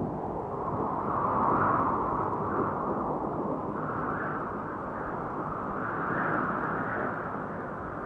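DJI Phantom 1 quadcopter's propellers and motors in flight, picked up by the GoPro it carries: a steady rushing noise mixed with wind, swelling and easing slightly every couple of seconds.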